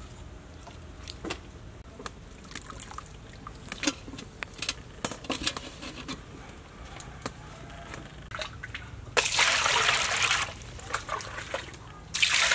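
Water sloshing and splashing in a large aluminium pot as pieces of scalded cow nose are moved and handled in it, with scattered light clicks and knocks. Two louder bursts of splashing come about nine and twelve seconds in.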